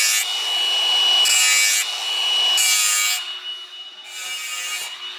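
A high-speed handheld power tool runs with a steady high whine while cutting in short, rasping passes, trimming a part so the extended wheel arch sits properly.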